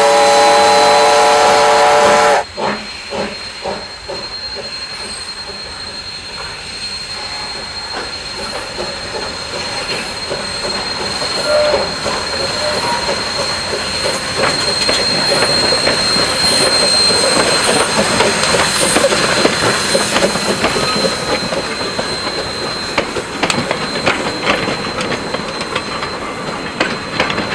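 NZR JA class 4-8-2 steam locomotive blowing a whistle blast of about two seconds at the start. It then works past with steam hiss and rapid exhaust beats, growing louder to a peak midway. Near the end its carriages roll by with wheels clicking on the rails.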